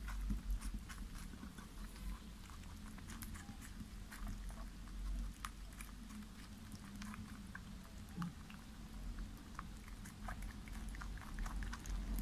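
A white pet rabbit chewing and biting into a fresh strawberry: a fast, irregular run of small, soft clicks from its teeth.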